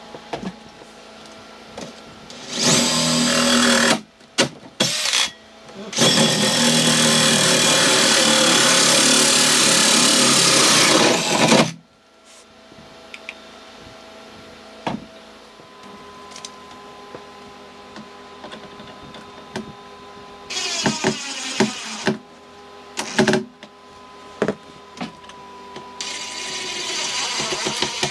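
Cordless drill with a hole saw boring through wooden wall boards: a short run, then a long steady run of about six seconds. Later come shorter bursts as the drill drives screws to fasten a plastic vent cover.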